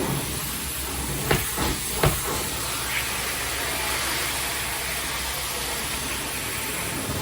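Hot-water carpet extraction (steam-cleaning) equipment running with a steady hiss over a low hum, with a couple of knocks about one and two seconds in.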